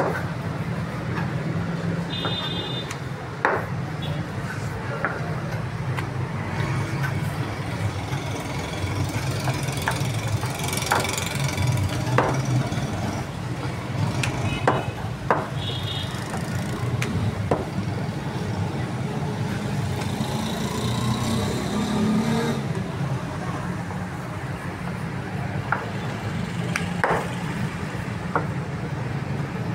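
Wooden rolling pin rolling out thin samosa patti dough sheets on a marble slab, with irregular knocks as the pin and dough are set down and moved. A steady low hum runs underneath.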